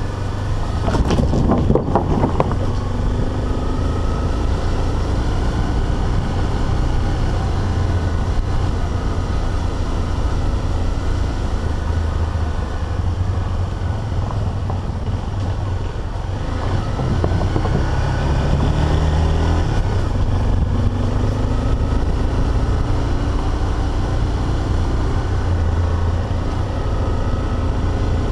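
Dual-sport motorcycle engine running steadily while ridden along a dirt track. A short burst of clattering knocks comes about a second in, as the bike rolls over a wooden plank bridge.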